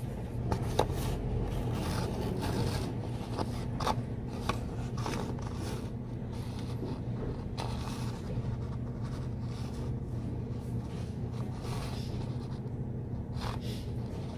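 Pen scratching on paper as a short message is written, with paper handling and a few sharp ticks in the first few seconds, over a steady low hum.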